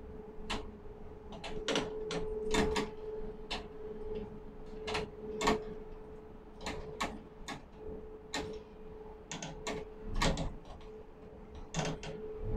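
Irregular sharp mechanical clicks and clacks, about one or two a second, over a steady mid-pitched hum, from ladle crane machinery at work.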